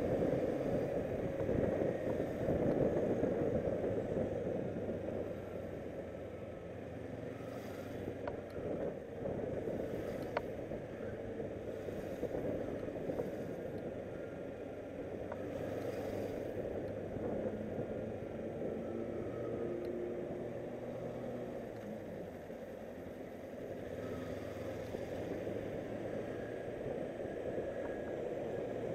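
Motorcycle engine running at low speed while filtering through slow traffic, its pitch drifting up and down with the throttle, under a steady rush of wind and road noise on the handlebar-mounted microphone.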